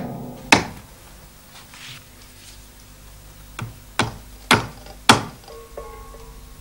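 A hammer drives nails through a paper poster into wooden planks. There is a single blow, then after a pause of about three seconds, four more blows roughly half a second apart.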